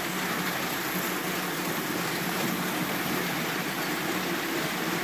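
Model train running past on metal track: a steady rolling rumble of wheels on the rails with a low motor hum.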